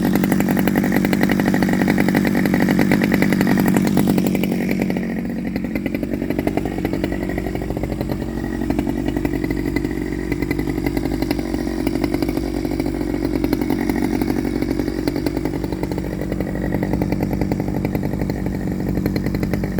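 Stihl 009L chainsaw on its standard single-screw carburettor, running at high revs; about four seconds in the engine note drops and wavers as it works under load, and it climbs back near the end, as when cutting into hardwood.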